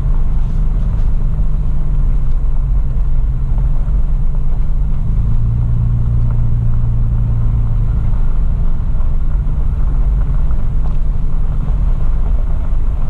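A Toyota FJ Cruiser's V6 engine and tyres heard from inside the cabin while it is driven along a dirt forest track: a steady low drone that grows stronger for a few seconds in the middle.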